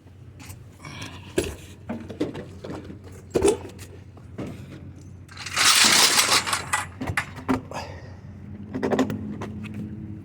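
Scrap being handled and shifted: scattered knocks and clatter, with a loud scraping crash lasting about a second, about six seconds in.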